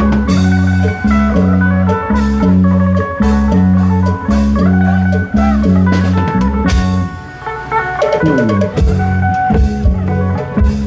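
Isan klong yao band music played loud through a sound system: a heavy pulsing bass line under steady drum strikes and a plucked lead melody, with a falling pitch slide about eight seconds in.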